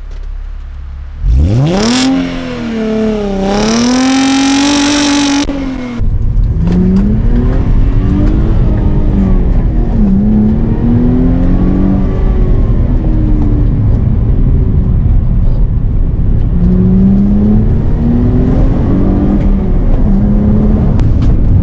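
Mercedes SLK 280 (R171) naturally aspirated V6 accelerating. About a second in, the engine note jumps up and climbs, dips once, climbs again and holds. About six seconds in the sound changes abruptly to the car driving with heavy road and wind rumble, the engine note repeatedly rising and falling.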